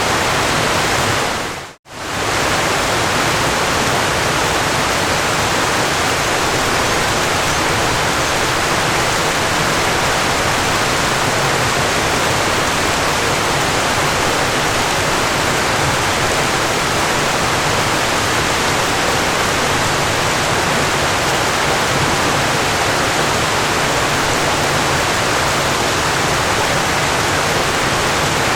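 Steady rushing of falling water, an even full roar with no rhythm. About two seconds in it fades out to silence for a moment and swells straight back.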